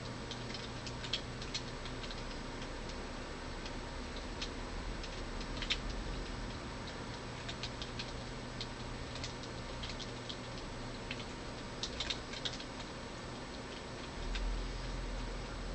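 Light clicks at irregular intervals, some in quick clusters, over a steady low hum.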